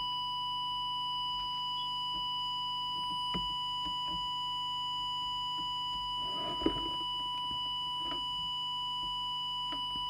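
Steady, unbroken audio test tone used for setting a CB transmitter's FM deviation, with a faint tap about a third of the way in and a sharper knock about two-thirds through as the alignment tool works on the board.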